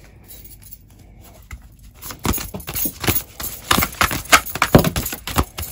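A tarot deck being shuffled by hand. It is quiet at first, then from about two seconds in comes a quick, irregular run of cards slapping and fluttering against each other.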